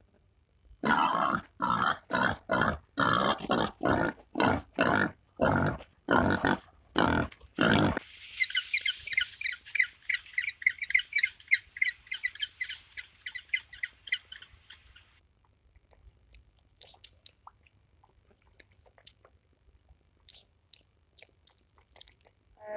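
Animal calls: about a dozen harsh, separate calls over the first eight seconds, then a fast, high-pitched chatter of many short notes lasting about seven seconds, then only faint scattered clicks.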